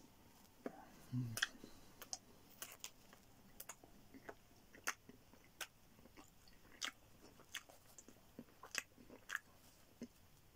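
Faint chewing of a mouthful of pepperoni pizza, mouth closed: irregular soft mouth clicks about twice a second, with a low thump about a second in.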